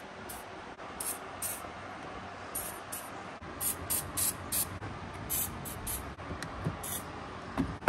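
Aerosol can of penetrating oil spraying the top strut mount bolts in about a dozen short bursts of hiss, one after another with brief gaps between them.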